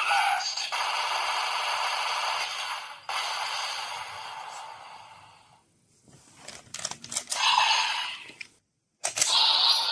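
Electronic sound effects from a DX Fantasy Raise Buckle transformation toy. A sustained effect fades out over a few seconds, then comes a string of short bursts, a brief silence, and a new effect starting near the end.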